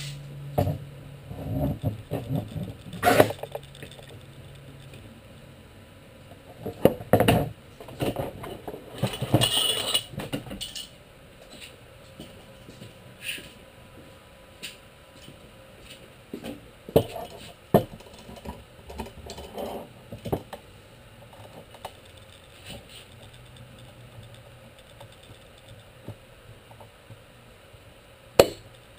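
Workshop handling sounds from clamping a glued plywood panel: scattered knocks and metallic clinks, with a sharp click near the end and a steady low hum during the first few seconds.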